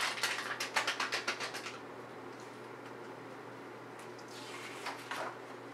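Snack packet crinkling in the hands as it is turned over, a quick run of crackles for the first couple of seconds, then a short rustle again near the end.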